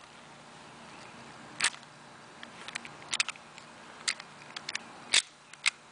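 Scattered sharp mechanical clicks from the WE M1911 gas blowback airsoft pistol as it is handled and readied to fire, the two loudest about one and a half seconds in and near the end.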